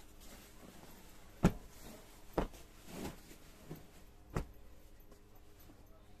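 Katan silk saree being flung out and flapped down onto a sheeted floor: a few sharp flaps and thumps, the loudest about a second and a half in, with a softer swish of cloth around three seconds.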